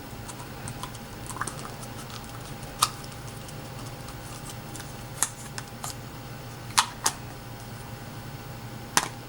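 Scattered light clicks and taps of small objects being handled, with about five sharper knocks, over a steady low hum.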